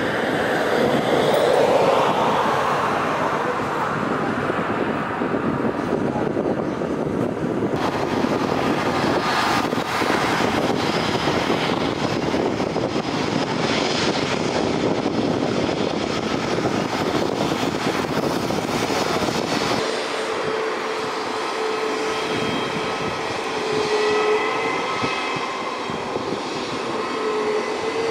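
Jet airliner engines at high power on a takeoff roll: a loud, steady rush. About 20 seconds in it gives way to the lighter whine of an Airbus A320neo's CFM LEAP-1A turbofans at low thrust while taxiing, with a few steady high tones.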